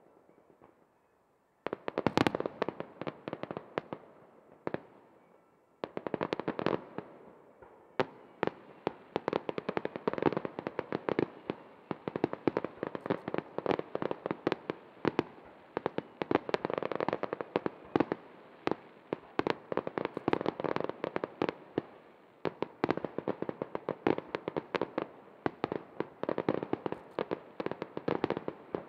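Aerial firework shells bursting in a rapid barrage, many sharp bangs close together. It starts about two seconds in, thins briefly near five seconds, then runs almost without a break.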